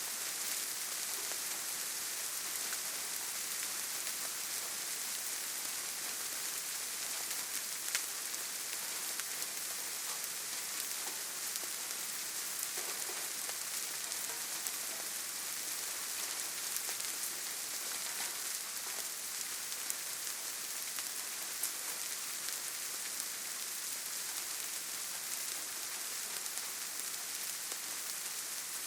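Gentle, steady rain falling on leaves, grass and ground, a soft even patter with scattered sharper drop ticks.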